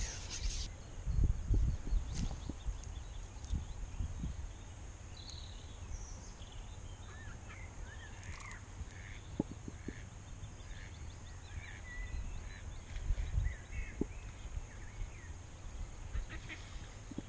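Birds calling in short, scattered chirps, with low rumbles on the microphone about a second in and again near thirteen seconds.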